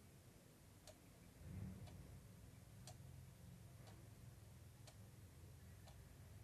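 Near silence, with a faint click about once a second and a faint low rumble about one and a half seconds in.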